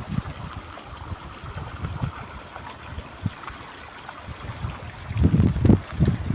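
A small stream running and trickling steadily. About five seconds in, loud low rumbling buffets come in over the water sound.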